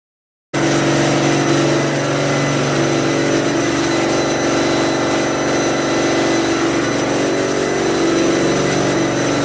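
Fire pump engine running steadily under load, loud and even. It cuts in abruptly about half a second in.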